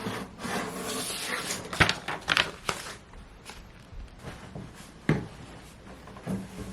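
Handling noises: rustling for about three seconds, with several sharp knocks and taps scattered through.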